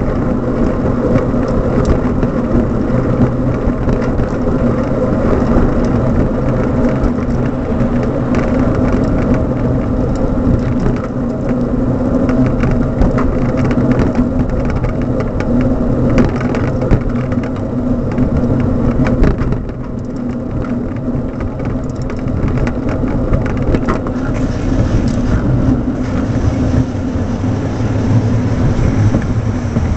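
Riding noise picked up by a camera mounted on a moving bicycle: wind rumbling on the microphone and road rumble, with many small knocks and rattles from the mount. It eases a little about two-thirds of the way through.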